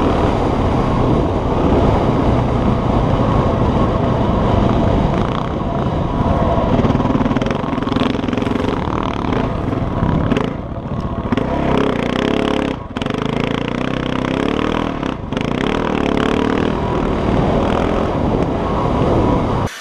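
Off-road motorbike engine running under way along a dirt track, heard from the bike itself. The engine sound drops off sharply and briefly about three times in the second half.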